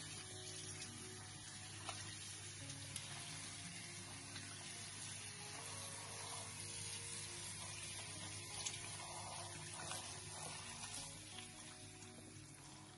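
Kitchen tap water running and splashing over radicchio leaves in a glass bowl as they are rinsed by hand, with background music.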